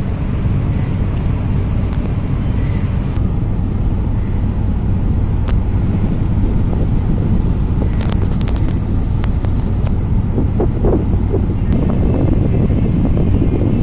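Ferry's diesel engines running under way: a steady low drone and hum, with the rush of water and air over the open deck.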